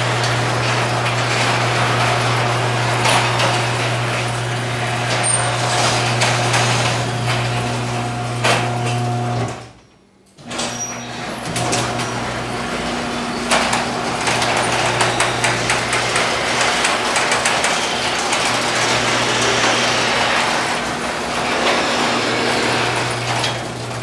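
Electric garage door opener running, its motor giving a steady low hum while the sectional door rattles along its tracks. The sound cuts out briefly about ten seconds in, then the opener runs on again.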